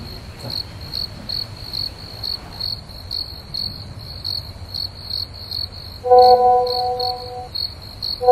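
Crickets chirping steadily, about two high chirps a second. Near the end, a louder electronic tone is held for about a second and a half.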